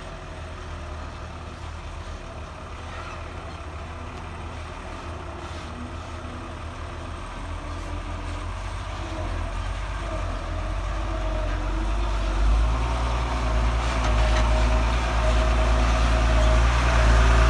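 Heavy diesel engine of construction machinery running, a low steady drone that grows steadily louder, getting much louder in the second half.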